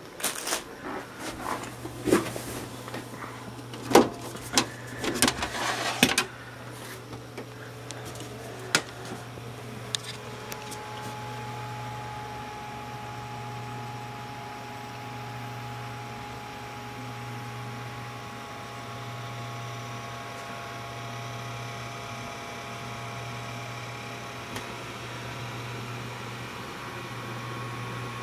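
Knocks and clatter of handling for the first six seconds, then the steady hum and whirr of a desktop computer's fans running, with faint whining tones joining about ten seconds in.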